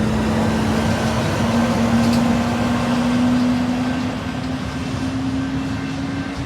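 SMART diesel multiple unit train running by. Its diesel engine gives a steady hum that rises slightly in pitch, over the even rumble of the train on the rails.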